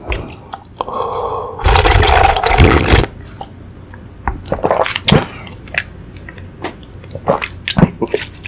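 Loud slurping of watermelon fruit punch drunk straight from a plastic bowl, lasting about a second and a half, followed by small wet mouth clicks and smacks as the mouthful is chewed and swallowed.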